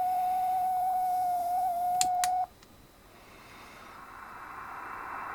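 Radio receiver putting out a steady whistle tone, the spurious signal from an ultrasonic humidifier. Two clicks come about two seconds in, then the tone cuts off and receiver hiss slowly swells in its place.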